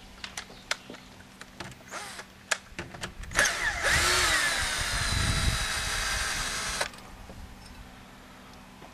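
Cordless drill backing out the screw of an old flagpole holder from a stucco wall: a few clicks, then the drill motor runs for about three and a half seconds, its whine dipping in pitch as it takes the load and then holding steady, and stops suddenly.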